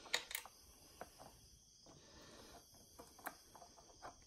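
Faint clicks and light metallic ticks of a wrench working the carburetor mounting nuts loose on a Johnson 9.9 two-stroke outboard, two quick clicks at the start and then scattered single ticks.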